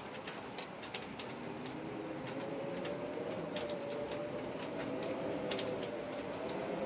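Steady rain with many scattered sharp drips and taps, joined about two seconds in by a wavering, moaning wind howl that swells and rises slightly in pitch.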